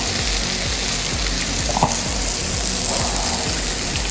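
Steady sizzling of a butter, onion and flour roux in a nonstick frying pan as chicken stock is added and stirred in with a wooden spoon.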